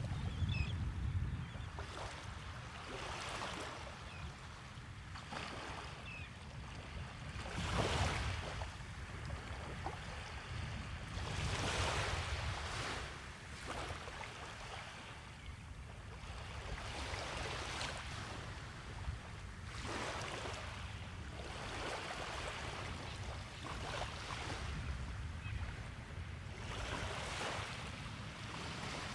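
Small waves breaking and washing up the beach about every four seconds, each wash a hiss that swells and fades, over a steady low rumble.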